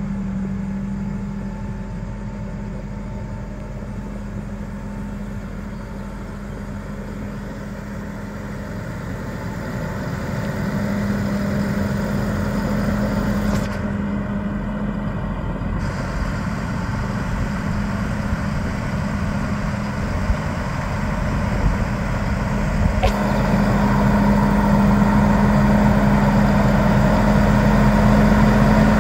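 2012 Case IH Magnum 315 MFWD tractor's diesel engine running as the tractor drives, a steady drone that grows louder in the second half as it comes closer.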